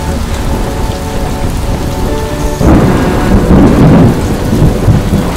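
Riding in an open auto-rickshaw: wind buffeting the microphone in a low rumble over road and engine noise. It swells much louder about halfway through.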